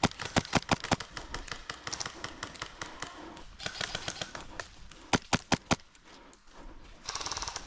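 Airsoft replicas firing: a quick run of sharp cracks about half a second in, four spaced single shots about five seconds in, and a fast rattling burst near the end.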